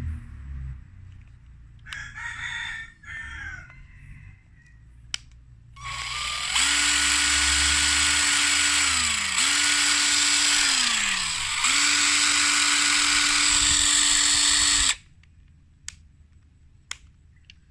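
Impact wrench motor run in three trigger pulls. It spins up to a steady high whine, winds down with a falling pitch when released twice, then runs again and cuts off abruptly.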